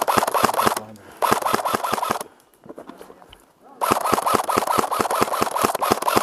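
Airsoft electric rifle, an Elite Force M4, firing on full auto in three bursts of rapid, evenly spaced shots with short pauses between, the last burst the longest.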